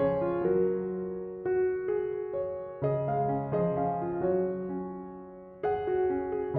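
Slow, gentle solo piano music: soft chords and notes struck every second or so, each left to ring and fade.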